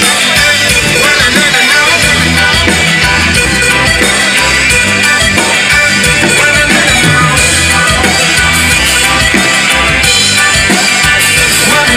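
Live band playing loudly: a drum kit, electric guitar and a singer's voice, recorded from the crowd.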